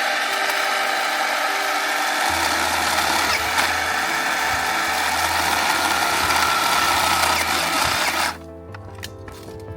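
Battery-powered electric chainsaw running and cutting into the bush's wood, cutting off suddenly about eight seconds in as its battery runs flat. Light background music plays underneath.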